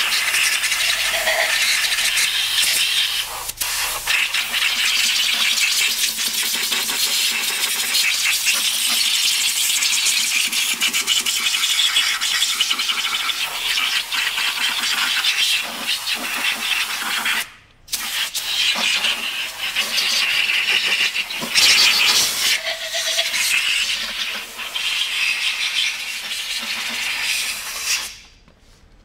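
Compressed-air blow gun hissing loudly in long blasts, blowing gasoline wash out of an automatic transmission case and its valve-body passages to dry them. The air cuts off briefly about two-thirds of the way through and stops near the end.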